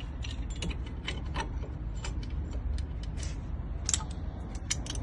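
Irregular metallic clicks and ratcheting from a tool working on the brake caliper as the caliper piston is pushed back in to make room for new brake pads.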